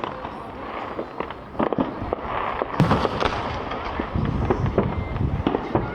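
Fireworks bursting: a dense run of crackles and pops with several deeper booms, the loudest about three seconds in.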